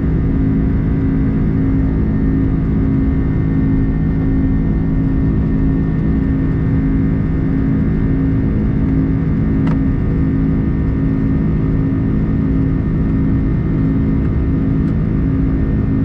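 Jet airliner cabin noise during the climb after take-off: the turbofan engines and airflow making a loud, steady rumble with a constant hum. A brief tick sounds about ten seconds in.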